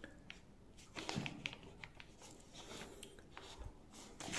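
Faint handling noises of a hand and ballpoint pen on paper: light rustles and scattered small taps, with the pen starting to write near the end.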